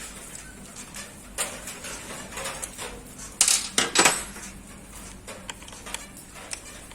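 Metal tools and bicycle bottom-bracket parts clinking and scraping against each other, with a few sharp, loud clanks about three and a half to four seconds in.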